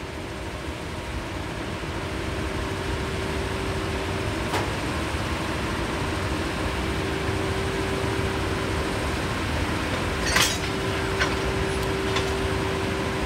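EF81 electric locomotive hauling the E26 series Cassiopeia train running on the line: a steady running noise with one held tone, growing gradually louder. A sharp click comes about four and a half seconds in, and a few more near the end.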